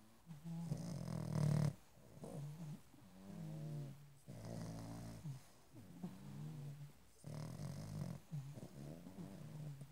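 A pug snoring in its sleep: a pitched, rasping snore on each breath, repeating every second or two, the loudest about a second and a half in.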